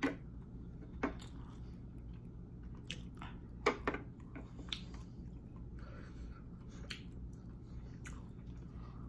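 Close-miked chewing of soft chicken and rice: scattered wet mouth smacks and clicks, about eight in all, spaced irregularly.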